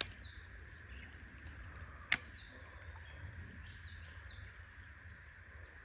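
Quiet creek-side outdoor ambience: a steady hiss with a few faint high chirps, broken by one sharp click about two seconds in.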